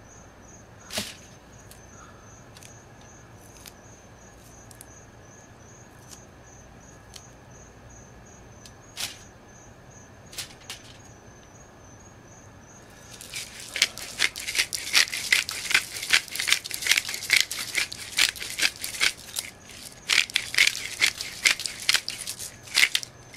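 Hand pepper mill grinding: a dense run of rapid crackling clicks starting a little past halfway and lasting about ten seconds. Before it there are only a few soft scattered handling clicks.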